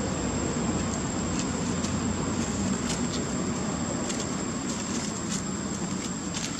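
Steady outdoor background rumble with a thin constant high whine over it, and a few faint soft crackles of dry leaves being handled by young macaques.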